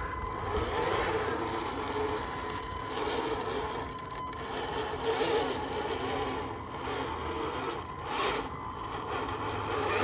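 Electric drivetrain of a Tamiya King Hauler RC truck on off-road wheels, its motor and gearbox whining unevenly as it crawls and spins through mud.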